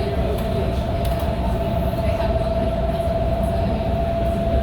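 A BART rapid-transit train running at speed, heard from aboard: a steady low rumble with a constant whining tone over it.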